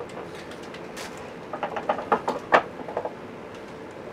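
Spoon knocking and scraping against a glass baking dish while browned ground meat is pressed flat. A quick run of sharp taps comes about a second and a half in; the loudest is near the middle, and a couple of fainter taps follow.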